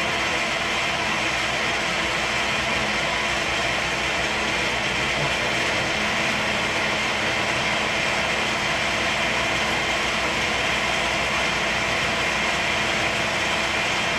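Schaublin SV-51 milling machine running at 400 rpm, drilling a 3.7 mm hole with a split-point twist drill under manual feed: a steady machine hum and hiss that holds the same level throughout.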